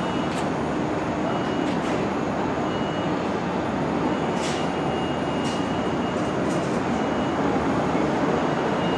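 New York City Subway 1 train of R62-series cars approaching on an elevated steel structure: a steady rumble of wheels on rails, with light clicks and a faint high squeal that comes and goes.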